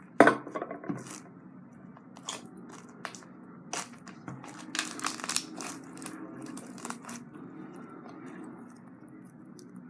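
Hands working a stiff slime, giving irregular crunchy clicks and crackling pops, the loudest about a quarter second in and another cluster around five seconds in.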